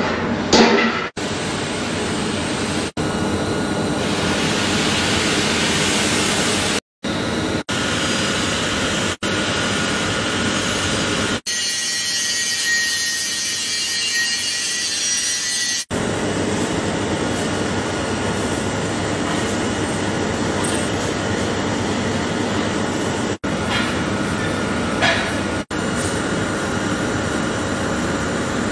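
TIG welding arc hissing steadily on steel pipe. It runs through several short clips joined by abrupt cuts, and the tone of the hiss shifts between clips.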